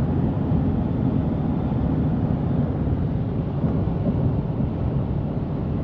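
Steady road and engine noise inside the cabin of a moving car: an even low rumble with no distinct events.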